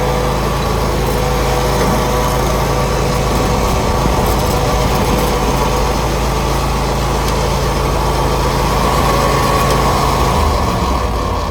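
Newly installed Briggs & Stratton engine on a Scag mower running steadily, with the blade belt off so the blades are not driven. The engine note shifts slightly near the end.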